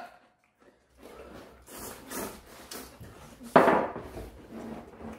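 Instant ramyeon noodles being slurped with chopsticks, a run of short slurps starting about a second in, the loudest about three and a half seconds in.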